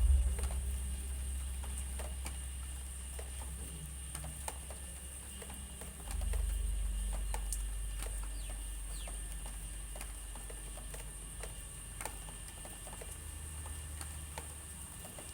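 Wind rumbling on the microphone, swelling sharply about six seconds in and then slowly dying down, with scattered small clicks and a thin steady high whine behind it.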